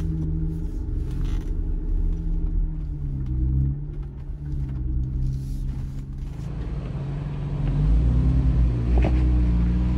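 Jeep engine running on a slow off-road trail climb, its pitch rising and falling as the throttle changes, with a low rumble that grows louder over the last few seconds.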